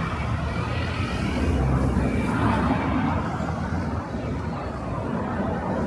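City street ambience: a motor vehicle's low rumble passing and easing off over the first few seconds, under a steady murmur of people talking.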